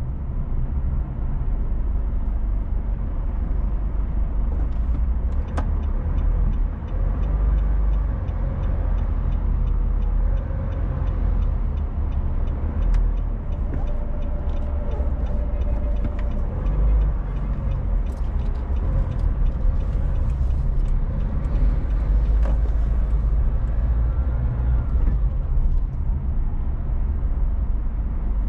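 Car driving at a steady pace: continuous low road and engine rumble, with occasional faint ticks.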